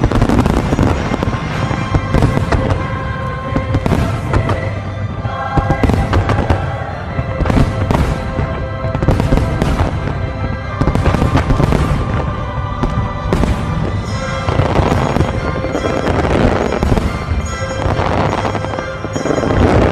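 Fireworks finale barrage: many shells bursting in quick succession with booms and crackle, over music playing steadily.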